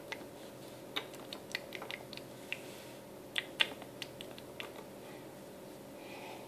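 Littlest Pet Shop plastic toy figures being handled and set down at a plastic toy table, making light, irregular clicks and taps that stop about five seconds in.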